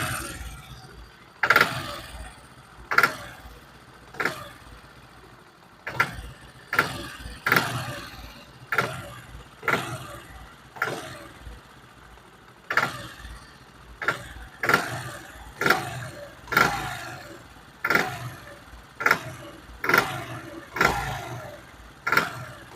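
Motorcycle engine revved in about twenty short throttle blips, a second or so apart. Each starts sharply and falls back toward idle. Under the blips the engine makes a knocking noise, which the mechanic blames on poor-quality, adulterated petrol and not on an internal engine fault.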